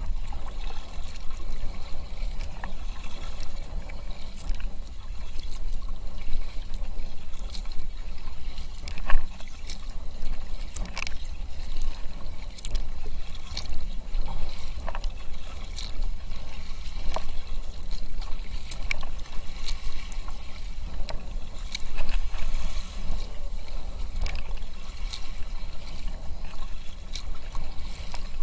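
Kayak paddling: a double-bladed paddle dipping and splashing into the water on each side with irregular drips and splashes, over a steady low rumble.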